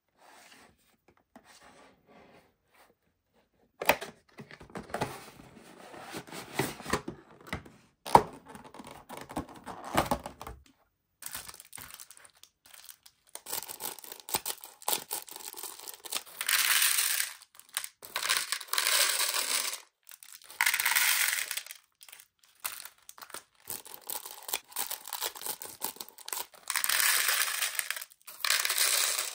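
A cardboard toy box handled with knocks and scraping, then a clear plastic bag of small plastic tiles cut with scissors and its thin plastic film crinkled in repeated loud rustles, each about a second long.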